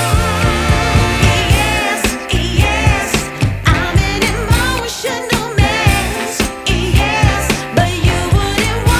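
Background music: a song with a female-sounding sung vocal over a steady drum-and-bass beat.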